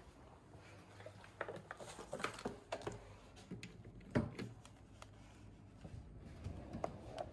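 Scattered light taps and knocks, then a sharp click about four seconds in as a wall-mounted door-release push button is pressed, and a few softer clicks near the end.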